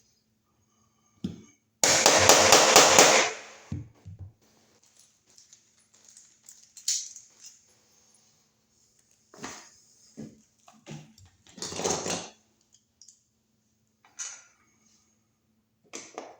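Tool work at a metal electrical box: a loud rattling burst of rapid strikes lasting about a second and a half near the start, then scattered clicks and knocks of metal parts and tools being handled.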